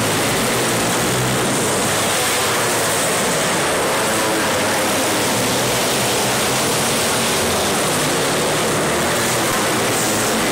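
Winged outlaw racing karts' engines running flat out as the pack laps a dirt oval, heard as a dense, steady, even din with no break.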